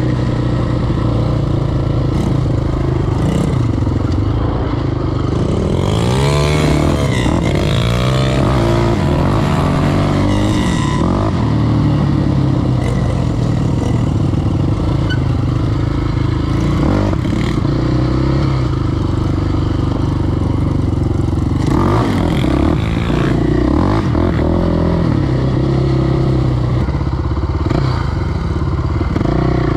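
KTM 525 XC quad's single-cylinder four-stroke engine running under way on a dirt track, the pitch rising and falling with the throttle, with the biggest swells about six seconds in and again about twenty-two seconds in.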